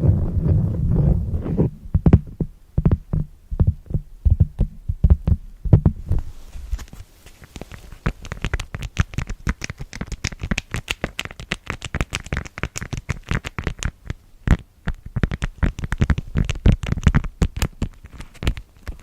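ASMR tapping: a low rubbing noise close to the microphone, then quick fingertip taps that become a dense, crisp run of tapping and scratching from about six seconds in.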